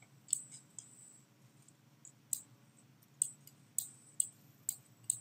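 Computer mouse button clicking as freehand strokes are drawn: about eight short, sharp clicks at irregular intervals, over a faint low hum.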